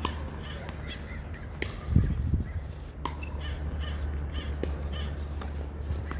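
A crow cawing over and over, short calls in quick succession, over the sharp pops of tennis balls struck by racquets in a rally, about one and a half seconds apart. A low thump about two seconds in is the loudest sound.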